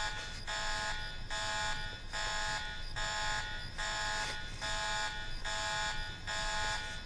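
An electronic alarm buzzer sounding in even, repeated pulses, about three every two seconds.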